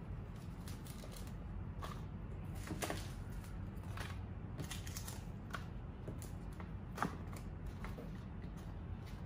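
Small foil seed sachets crinkling and tapping as they are handled and dropped into paper plant pots: scattered light clicks and rustles, the sharpest about seven seconds in, over a steady low hum.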